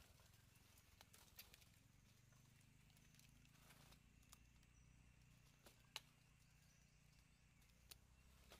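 Near silence: a faint low rumble with a few scattered soft clicks and crackles of dry leaf litter shifting under the monkeys, and one sharper click about six seconds in.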